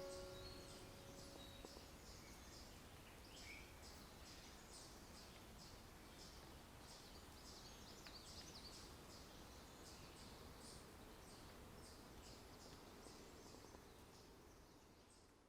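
Faint natural ambience of small birds giving many short, high chirps over a low hiss; it fades out near the end. A piano chord dies away in the first second or two.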